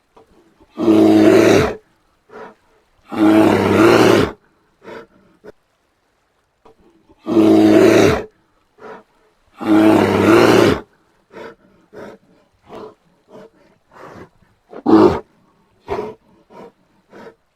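Brown bear roaring: four long, loud roars of about a second each in the first eleven seconds, followed by a run of short, quieter calls.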